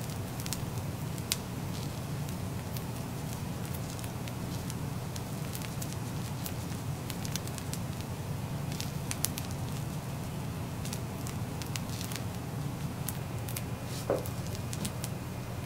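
Kimchi fried rice sizzling on a hot teppanyaki griddle, with scattered sharp crackles over a steady low hum.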